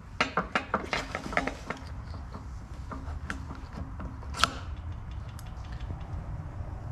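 Small steel parts of a 727 transmission valve body clicking and clinking as the throttle valve lever is worked onto its shaft by hand: a quick run of clicks in the first two seconds, then one sharper click about four and a half seconds in, over a low steady hum.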